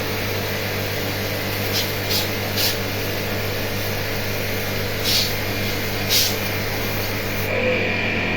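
Electric jet-spray pump running with a steady hum, with several short hissing bursts of water spray for an AC service.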